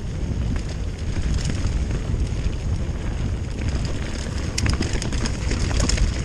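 Wind buffeting the microphone on a moving mountain bike, a steady low rumble, with scattered clicks and rattles in the second half.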